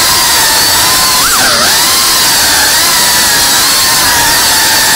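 The brushless motors and propellers of a 3.5-inch cinewhoop FPV drone in flight: a loud, steady whine over a hiss. Its pitch wavers with the throttle and dips sharply about a second and a half in before climbing back.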